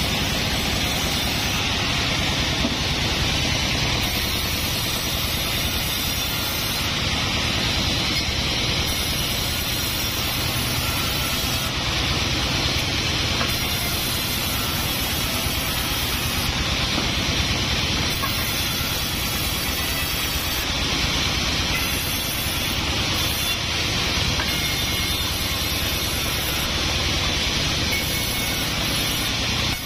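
Large band saw running steadily, its blade cutting lengthwise through a Sonokeling (Indian rosewood) log as the log is pushed along the table, ripping it into squared beams.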